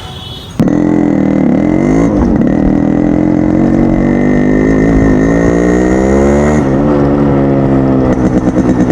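Hero Splendor motorcycle's single-cylinder four-stroke engine running loudly through a fitted Yamaha RX 100 exhaust silencer, cutting in abruptly under a second in and being revved up and down a few times. Near the end it runs with an uneven pulsing beat.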